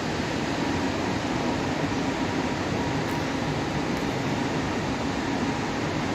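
Steady droning hum of electric trains at a station platform, with no distinct events.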